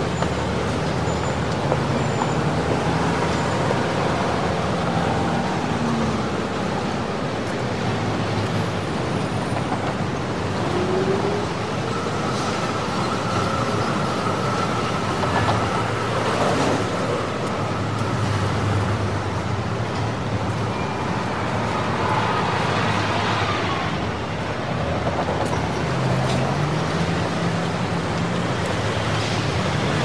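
Heavy city street traffic: a steady wash of car and bus engines and tyre noise, with now and then a vehicle's engine rising in pitch as it pulls away. A thin high tone holds for several seconds around the middle.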